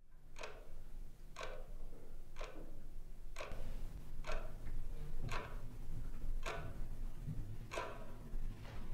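Quartz wall clock ticking about once a second over a low steady hum, the ticks spacing out toward the end.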